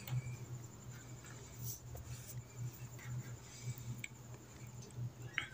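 Faint scratching and a few light metallic clicks as gloved hands work the gears on a Toyota Fortuner manual gearbox's shaft assembly, over a steady low hum.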